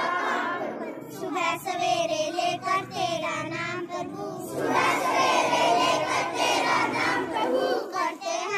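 Schoolchildren singing a Hindi prayer together in unison, many young voices holding drawn-out notes.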